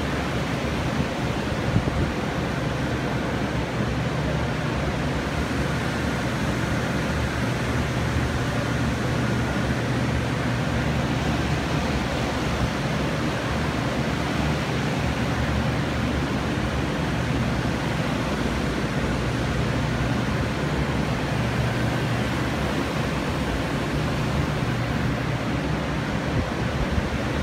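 Several water-damage restoration air movers and dehumidifiers running together: a steady rush of blown air with a low hum underneath.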